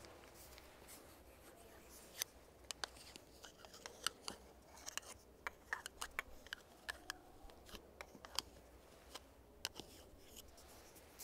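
Irregular crisp clicks and taps from a small black makeup tool being handled close to the microphone.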